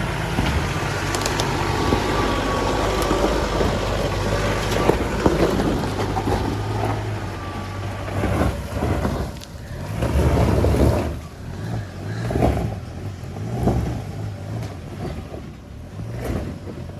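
Mitsubishi L200 Triton pickup's engine pulling steadily under load in low range on a steep, rocky climb. From about halfway through, the sound comes in uneven surges with brief knocks as the truck works over loose stones.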